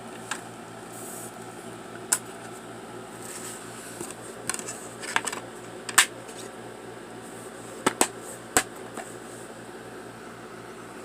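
Steady mechanical hum with a faint regular pulse. About eight sharp clicks are scattered over it, two close together near eight seconds in and the loudest about six seconds in.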